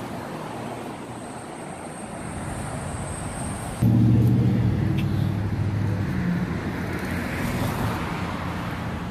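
Road traffic: vehicles passing on the street, with a louder engine drone starting suddenly about four seconds in and fading over the following seconds.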